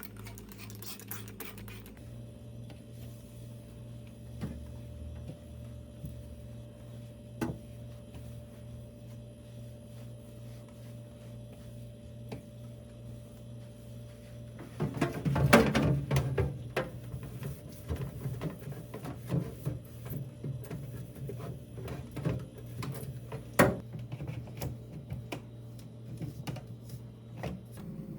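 Household objects being handled: scattered clicks and knocks, with a louder run of clatter about halfway through and a sharp knock later on, over a steady low hum.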